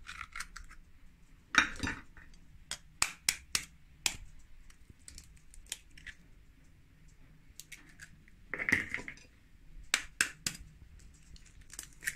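Eggs being cracked against a bowl and emptied into it: scattered sharp clicks and knocks of shell and dish.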